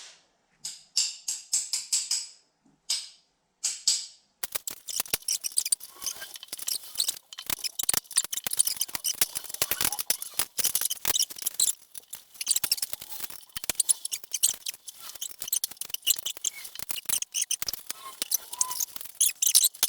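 Rapid, irregular high-pitched clicking and scraping of hand-tool work on the table's rusty metal and plastic parts. A few short bursts with sudden gaps come first, then a dense run of clicks from about four seconds in.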